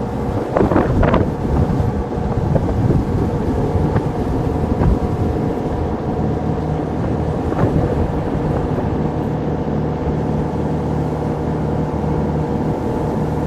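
Boat engine running steadily at a constant pitch, with a few gusts of wind on the microphone about a second in.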